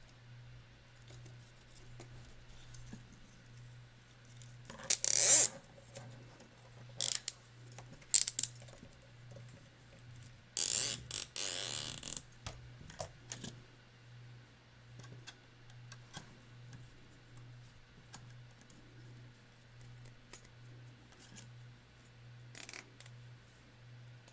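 Zip ties being pulled tight by hand: a loud ratcheting zip about five seconds in and a longer one about eleven seconds in, with scattered clicks and handling of the plastic in between.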